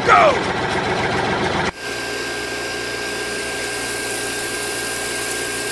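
Small electric motor running steadily. After a sudden change about two seconds in, it settles into an even hiss with a thin high whine, like a mini DC water pump pushing liquid through a clear tube.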